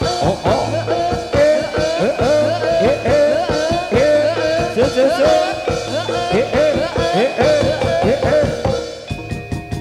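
Live jaranan music from a Javanese gamelan-style ensemble: a sliding, wailing melody line over hand-drum strokes and a low gong-like pulse that comes back about every second and a half. Near the end the melody breaks off, leaving drum strokes and a few held ringing tones.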